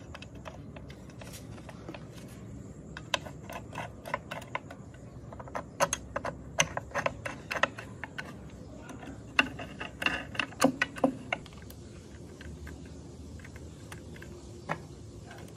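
Small metallic clicks and taps from handling and bolting a metal bearing cover plate onto a gearbox housing, and from a tool working the bolts. The clicks come in quick runs, most of them between about three and eleven seconds in.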